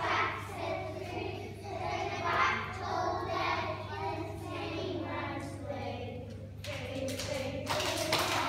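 A group of children singing together as a choir, heard across a large hall over a steady low hum, with a short rush of noise near the end.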